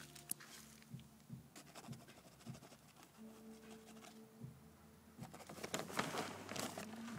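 A fingertip scratching and rustling a plastic tarp: light scattered scratchy ticks, becoming a denser, louder crinkling rustle about five seconds in.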